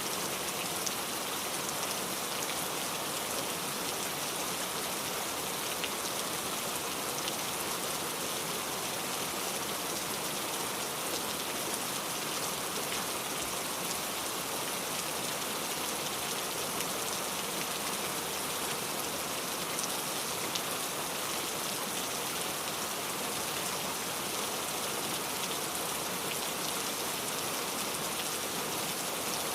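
Steady rain falling on a surface, an even hiss of drops with faint fine patters throughout.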